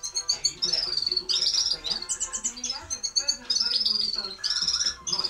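Red-fronted serin singing: a rapid twittering song of high trills and falling runs of notes, broken by short pauses.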